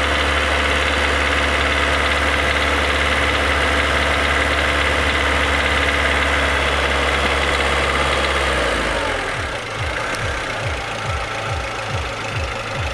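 Renault Logan 1.6 16-valve petrol engine held at raised revs, running with the knock that its owner says is heard only around 2000 rpm; dealers suspect a hydraulic valve lifter, the owner suspects something else. About two thirds of the way in the revs drop and the engine settles to idle.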